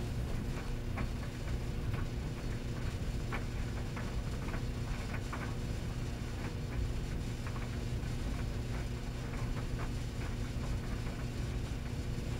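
Light, slightly uneven ticks about every half second to second over a steady low hum.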